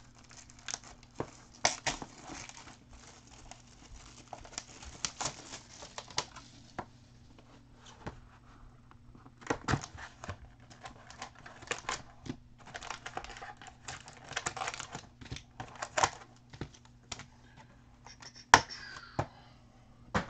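Crinkling and tearing of wrapping as a 2012-13 Panini Crusade basketball card box is opened and its foil packs taken out, with scattered small clicks and taps of handling.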